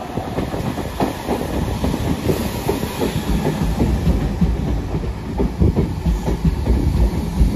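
Class 313 electric multiple unit approaching and running past close by, its wheels clattering in a dense stream of clicks over the rail joints and the level crossing, with a steady rumble underneath.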